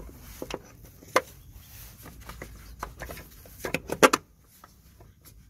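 Scattered clicks and knocks of gloved hands fitting the fuel filter's mounting clamp onto a BMW 730d's fuel filter, with a quick cluster of louder knocks about four seconds in.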